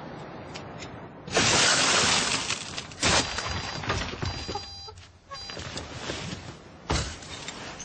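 A car's side window glass smashed, a loud crash with falling glass about a second in. Two sharp knocks follow, one about three seconds in and another near the end, with a few short high steady tones in between.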